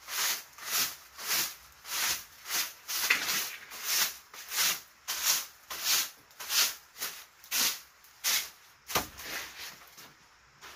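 A short grass broom sweeping across a wooden plank floor in brisk, even strokes, about one and a half a second. One heavier stroke lands with a low thud about nine seconds in, and the sweeping stops soon after.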